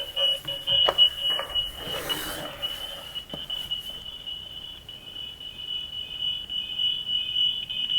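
Steady high-pitched electronic whistle from the open two-way intercom call between a video doorbell and a phone app, with a couple of faint clicks. The whistle cuts off near the end.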